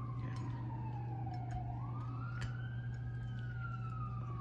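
An emergency vehicle siren wailing, its pitch falling slowly, rising again from about a second and a half in, then falling toward the end. A steady low hum and a few light clicks lie underneath.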